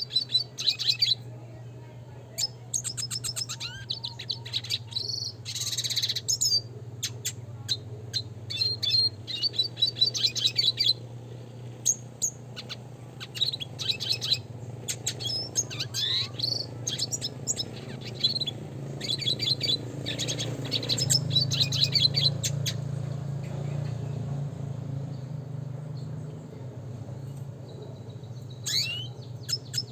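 Red siskin singing in bursts of rapid high chirps and trills, with a pause near the end before it starts again. A steady low hum runs underneath.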